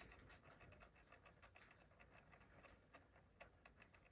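Near silence: room tone with faint, irregular ticking, several ticks a second.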